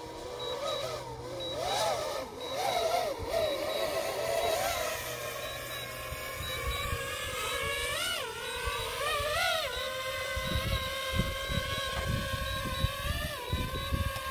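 DJI FPV drone's propellers and motors whining as it hovers low over its home point after a low-battery return-to-home. The pitch wavers early on, dips and climbs sharply twice around eight and nine and a half seconds, then holds steady. From about ten seconds in there are low buffeting thumps.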